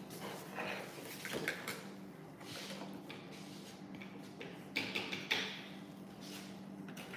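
Scattered scrapes, rustles and light knocks of small plastic toys being handled in a bin of play sand, over a steady low hum.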